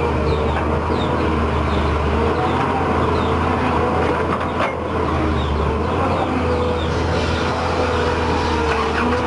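Volvo excavator's diesel engine running steadily, with a wavering whine above the low engine hum as it works.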